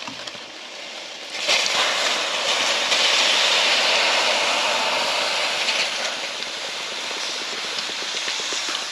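Beer poured into a stainless steel pot of raw Dungeness crabs: a steady splashing, fizzing hiss that starts about a second and a half in and keeps going.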